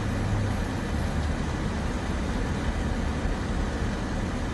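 Steady low rumble and hiss of a car idling, heard from inside the cabin.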